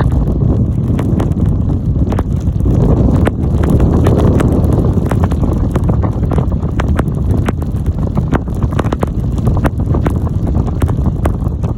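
Storm wind buffeting the microphone in a loud, steady rumble, with many short sharp ticks scattered through it.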